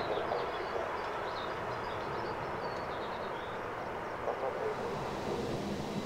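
Jet airliner engines running at a distance, a steady rumble slowly fading.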